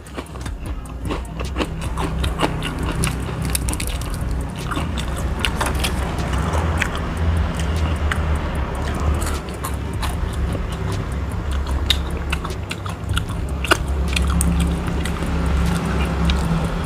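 A person chewing and crunching food, with many short, sharp crunches from a crisp rice cracker (kerupuk) and fried food, over a steady low hum.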